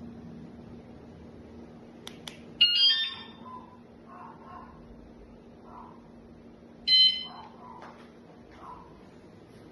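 Wsdcam motorcycle alarm giving two short electronic beeps about four seconds apart, the first just after two faint clicks.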